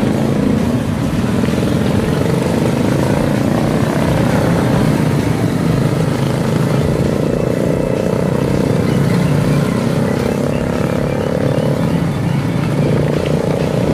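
Small motorcycle engines running steadily in close traffic: a scooter and a motorcycle-sidecar tricycle droning just ahead.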